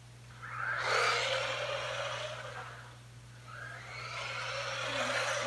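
Small electric RC car running on a concrete floor: motor whir and tyre noise come in twice, the first swelling about half a second in and fading by about three seconds, the second building again toward the end.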